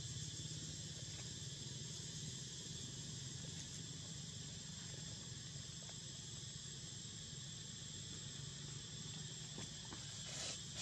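Steady high-pitched drone of insects, crickets or cicadas, with a few faint clicks near the end.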